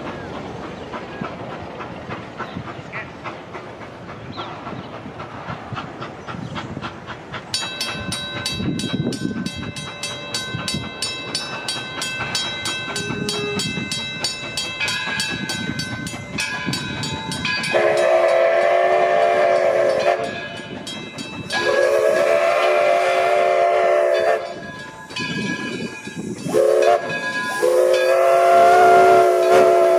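Steam locomotive running, its bell starting to ring about a quarter of the way in. In the last third its whistle sounds four blasts, long, long, short, long: the signal for a grade crossing.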